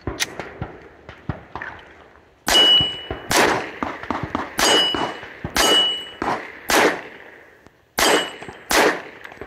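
Metallic clicks of a pistol magazine being changed, then seven shots from a Glock 41 .45 ACP pistol, roughly one a second, with several hits ringing on steel targets.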